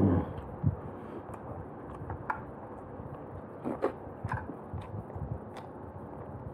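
Close-miked eating sounds: chewing and wet mouth smacks while eating roast chicken by hand, with irregular short clicks and smacks scattered through.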